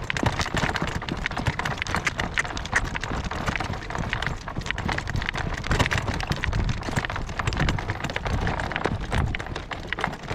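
Morgan horse's hooves clip-clopping in a quick trot on a road while pulling a driving cart, with wind rumbling on the microphone.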